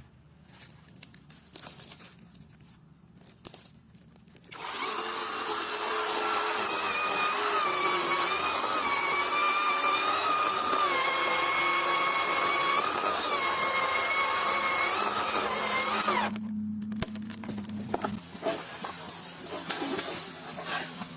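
Chainsaw cutting through coconut wood: after a quieter start, the saw comes in about four and a half seconds in and runs loud and steady for about eleven seconds, its pitch wavering slightly under load, then drops to a low hum with a few clicks near the end.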